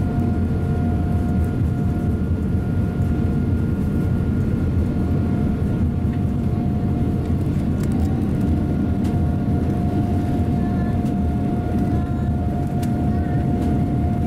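Cabin noise of a Boeing 787-9 airliner on its takeoff roll: the engines at takeoff power give a loud, steady rumble with a steady hum-like tone over it, as the aircraft lifts off the runway.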